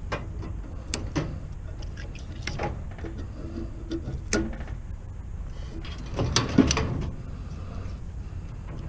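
Scattered clanks and knocks of scrap metal parts being handled and pried apart by hand, with a louder cluster of knocks about six to seven seconds in, over a steady low rumble.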